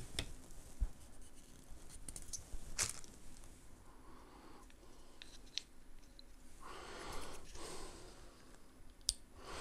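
Faint handling noises: a few light clicks and knocks on plastic, and a brief soft rustle about seven seconds in, as the monitor lamp's clamp and its packaging are handled.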